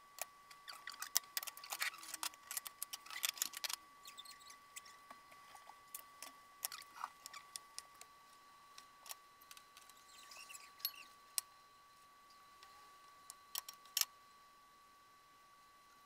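Chef's knife slicing tomatoes on a wooden cutting board: quick runs of taps at first, then scattered taps, with a sharp knock near the end. A faint steady high tone runs underneath.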